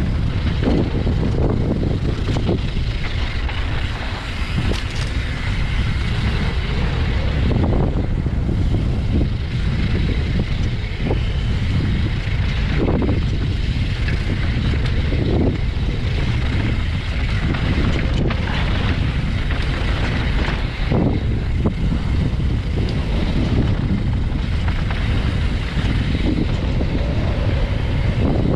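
Wind buffeting the microphone and tyres rumbling over a rocky trail during a fast descent on a YT Tues downhill mountain bike, with scattered knocks and rattles from the bike.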